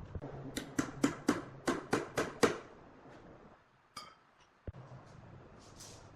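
A quick run of about eight sharp, ringing knocks, roughly four a second, followed by a few scattered knocks and clicks.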